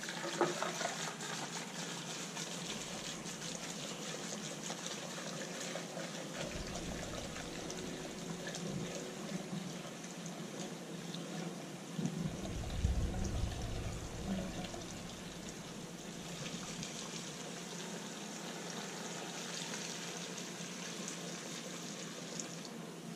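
Gasoline pouring from a plastic gas can through a funnel into a car's fuel filler: a steady trickling stream, with a few low bumps midway.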